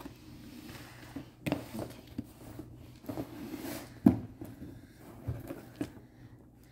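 Cardboard mailer box being handled and opened on a table: scattered knocks and rustles, the loudest a sharp thump about four seconds in.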